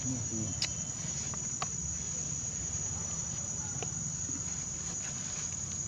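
Steady high-pitched drone of forest insects, with a few faint clicks.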